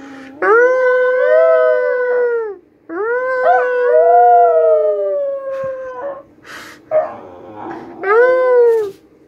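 Hungarian vizsla puppy howling: two long drawn-out howls, the second sliding slowly down in pitch, then a short howl near the end.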